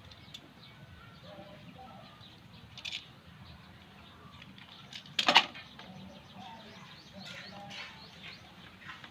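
Faint handling noise and small clicks of wire stripping on a USB cord's red and green leads, with one sharp, loud snap about five seconds in.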